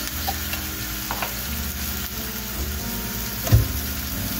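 Steady kitchen hiss with a low hum. About three and a half seconds in there is one sharp knock as a metal can is set down on the countertop.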